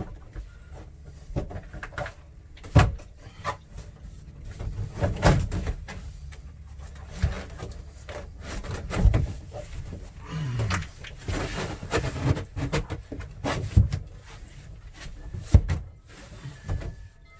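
Irregular knocks, bumps and scraping from a stiff FRP plastic wall panel being handled and worked into place, with a rustling scrape for a second or so past the middle.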